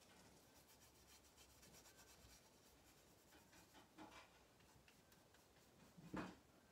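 Near silence with the faint scratching of a paintbrush working oil paint across the painting, and one short, louder brushing or tapping sound near the end.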